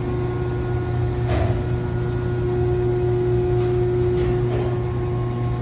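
Steady low machinery hum with a constant higher tone over it, a second tone joining for a couple of seconds midway, and a few faint knocks.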